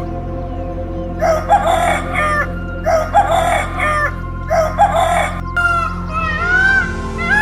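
A rooster crowing three times, each crow a harsh call of about a second, over a steady background music bed. Near the end, a run of shorter arched calls from another bird begins.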